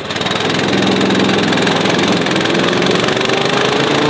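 Small gasoline engine of a wood chipper running at speed, its pitch climbing steadily through the second half as it revs up.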